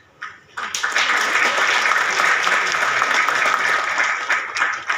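Applause from a theatre audience and the cast on stage: a burst of hand clapping starts about half a second in, holds steady for about four seconds, and dies away near the end.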